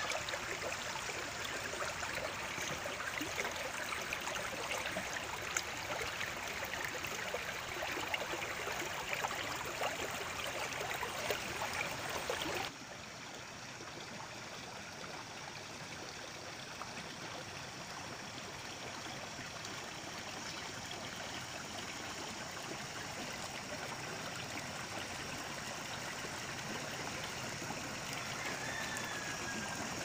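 Steady rush of running water, like a stream, that drops suddenly to a quieter, smoother level about a third of the way in. A rooster crows faintly near the end.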